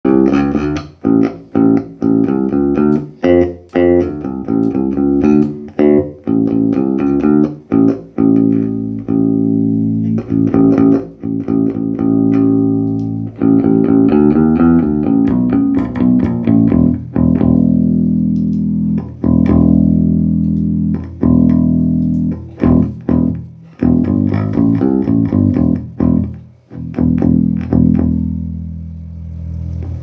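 Electric bass guitar played through a Laney RB4 bass combo amp: quick runs of plucked notes, with longer ringing notes in the middle. A sound test of the amp after repair of damaged power-amp board traces and burnt internal connectors that had made its sound cut out randomly.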